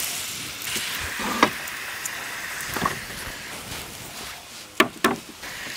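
Steady sizzle of carrots frying in a kazan over a wood fire, broken by a few sharp knocks, two of them in quick succession near the end.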